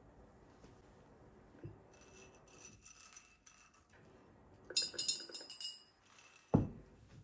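Kitchenware clinking: a quick cluster of ringing clinks, followed about a second later by a single dull knock.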